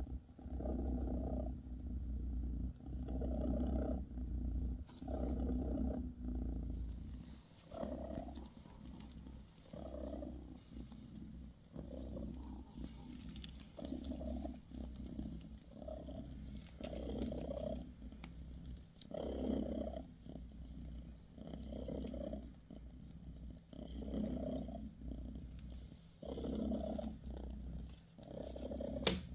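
Mother cat, a golden British Shorthair, purring close to the microphone while her newborn kittens nurse, the purr swelling and fading about once a second with her breathing. A single sharp click sounds near the end.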